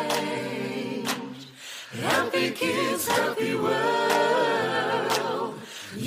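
Vocal music: several voices singing together in long held notes, with a short dip about a second and a half in.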